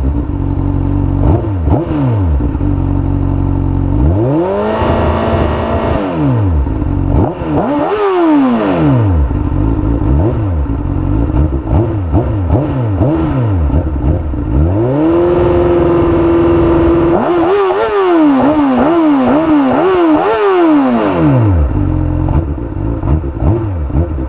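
Honda CBR600F inline-four motorcycle engine with an Akrapovic exhaust, warm and running at a standstill, revved up and down with the throttle. It gives several separate blips, then a rev held steady about two thirds of the way through, then a quick run of short blips before dropping back to idle.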